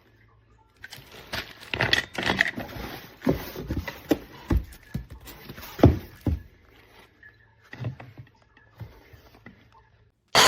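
Knocks, clicks and scrapes of hard plastic parts being handled, uneven and loudest about four to six seconds in. Right at the end a cordless stick vacuum's motor switches on suddenly with a loud whine.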